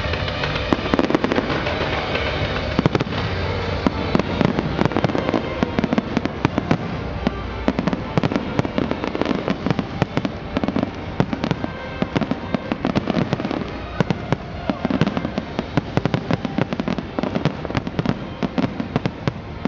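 Fireworks display: aerial shells bursting in a dense, continuous barrage of bangs and crackles, with sharp louder reports scattered throughout.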